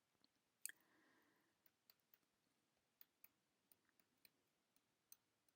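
Near silence broken by faint, irregular small clicks, about a dozen of them, the most distinct about two-thirds of a second in.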